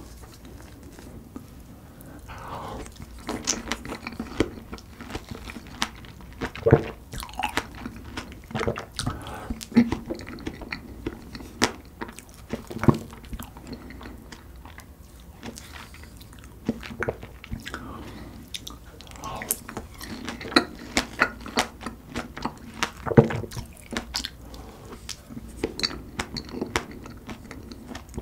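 A person chewing and biting large fresh strawberries with whipped cream. Irregular sharp mouth smacks and clicks run throughout, a few of them louder than the rest.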